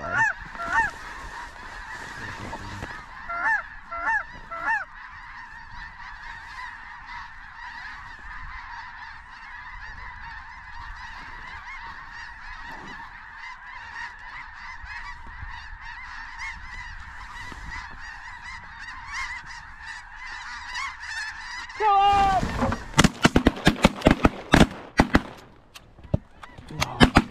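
A huge flock of snow geese calling overhead, a dense steady din of honking, with a few louder close calls in the first seconds. About 22 s in the calling swells loudly, then several shotguns fire a rapid volley of a dozen or so shots into the descending flock.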